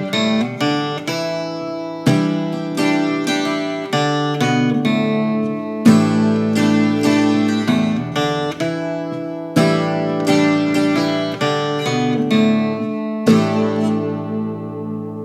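Twelve-string acoustic guitar played solo, chords struck in a steady rhythm, each ringing on into the next.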